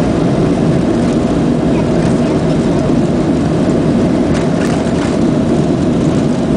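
Jet airliner's engines and wheels on the runway during the takeoff roll, heard inside the cabin as a loud, steady, deep rumble.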